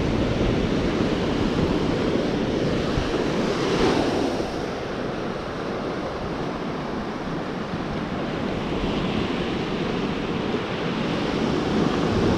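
Ocean surf washing up a sandy beach, with wind on the microphone. A wave breaks loudest about four seconds in, the wash then eases, and it builds again near the end.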